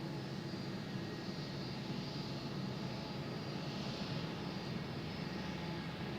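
Jet airliner engines at takeoff thrust, a steady engine noise with a low drone in it.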